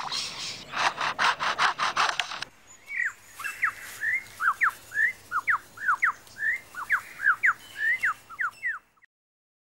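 Superb lyrebird mimicking a chainsaw in rasping, noisy strokes, then about two and a half seconds in switching to a quick run of whistled notes, most sliding downward, two or three a second, until it stops about nine seconds in.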